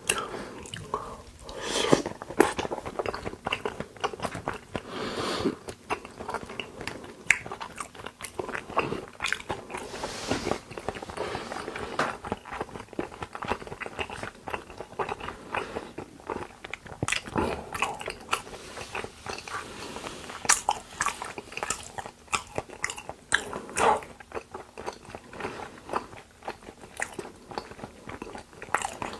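Close-miked eating: a person chewing raw seasoned beef (yukhoe) with wet, sticky mouth sounds, broken by sharp clicks and occasional crunches.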